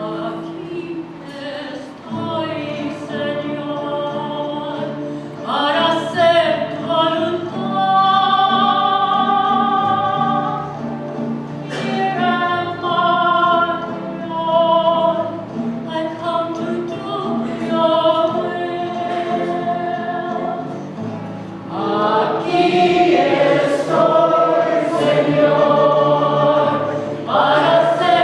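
Church choir singing a sacred piece with sustained instrumental accompaniment underneath. The singing swells louder about six seconds in and again about twenty-two seconds in.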